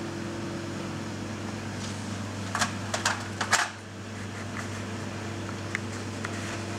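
Steady hum of a kitchen ventilation fan, with four or so light clicks close together about two and a half to three and a half seconds in.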